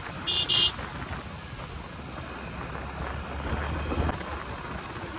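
Wind buffeting the microphone and road noise from a moving motorcycle, with a vehicle horn beeping twice in quick succession in the first second. A low rumble builds about three seconds in and stops suddenly about a second later.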